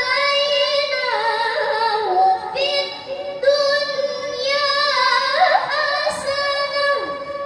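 A young female qari'ah reciting the Qur'an in melodic tilawah style into a microphone over loudspeakers, holding long ornamented notes with two short breaths between phrases; the phrase ends near the end.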